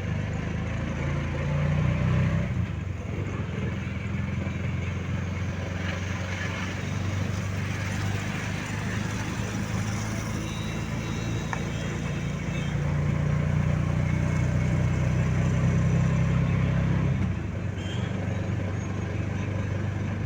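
Motor vehicle running along a road: steady low engine and road noise, louder for a few seconds in the second half, then dropping suddenly near the end.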